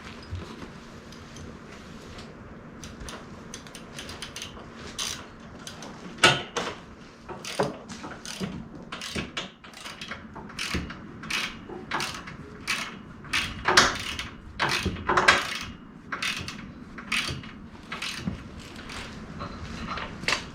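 Hand ratchet wrench clicking in short runs while bolts are tightened, with scattered metallic clicks and knocks, beginning a couple of seconds in.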